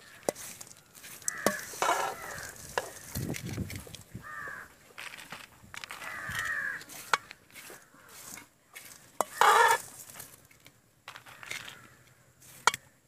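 Crows cawing: four or five separate calls a few seconds apart, the loudest about three quarters of the way through, with scattered sharp clicks between them.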